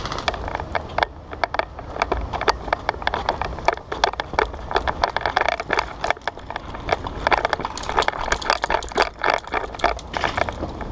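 Irregular sharp clicks, cracks and rattles over a steady low rumble, typical of an indoor airsoft game: shots, BB strikes and gear rattling as a player moves.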